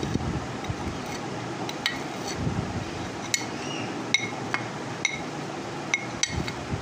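Metal spoon clinking and scraping against a small glass dish while spooning out chilli powder. About ten sharp clinks, each with a short glassy ring, come at irregular intervals.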